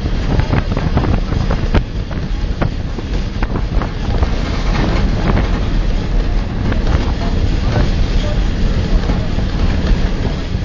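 Wind buffeting the microphone over the steady rumble of a moving vehicle, with frequent short knocks and rattles.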